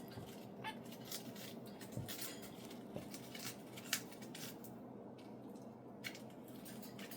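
Faint, irregular small clicks and crunches of budgerigars picking and nibbling at foraging material, with a few sharper ticks about four seconds in.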